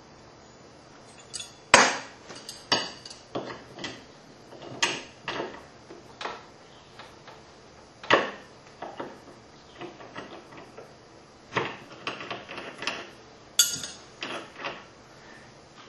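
Reloading tools and press parts being handled on a bench: a string of about twenty irregular sharp metal clicks and knocks, the loudest about two seconds in.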